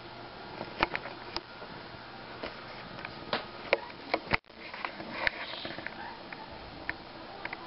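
Scattered sharp clicks and knocks from a handheld camera being handled and moved around a plastic tub, over a low room hiss, with the sound cutting out briefly about halfway through.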